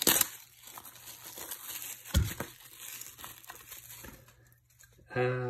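Plastic shrink-wrap being peeled and torn off a 4K Blu-ray box set case: a loud crinkle at the start, then scattered softer crackles of the film. A dull thump comes about two seconds in.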